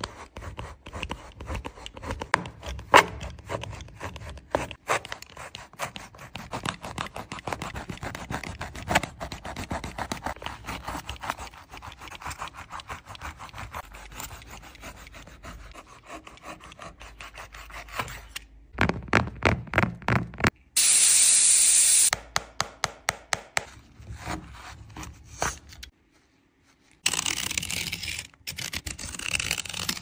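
Knife blade cutting and scraping through a Nike Kobe 6 sneaker along the seam where the upper meets the sole, a dense run of small scratchy strokes. About two-thirds of the way in come a burst of quick, even strokes and a loud rasp lasting about a second and a half.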